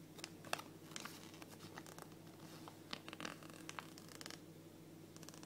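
Thin glossy paper leaflet from a Kinder Surprise egg being unfolded and handled, giving faint scattered crinkles and rustles that are thickest between about three and four and a half seconds in.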